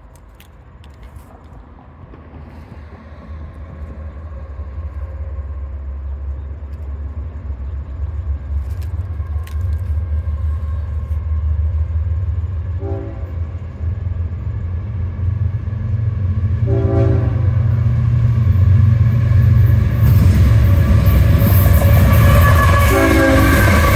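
Approaching CSX freight train: the diesel locomotives' engine rumble grows steadily louder as the train nears. Three short blasts of the locomotive air horn sound: about halfway in, a few seconds later, and near the end. The clatter of wheels on rail rises as the lead engine arrives.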